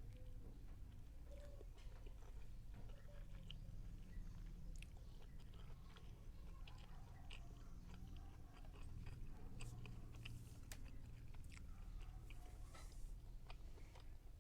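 A person chewing food with the mouth close to the microphone. There are many small wet clicks and smacks, faint over a low steady hum.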